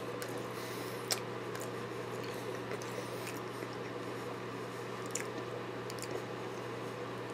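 A person chewing a mouthful of deep-fried Hostess cupcake with a crispy crust, quietly, with a couple of small sharp clicks from the mouth, over a steady low hum.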